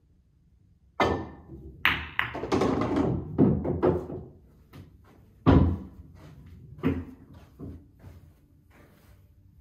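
Pool shot on a Diamond 9-foot Pro-Am table: a sharp cue strike about a second in, then a quick run of balls clicking off one another and the cushions, a loud thunk about five and a half seconds in, a smaller one about a second later, and fading taps as the balls roll to a stop.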